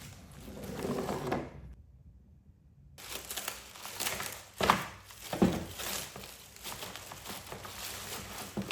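Plastic bags holding the mudflaps being handled, crinkling and crackling in irregular bursts, with a brief dead silence about two seconds in.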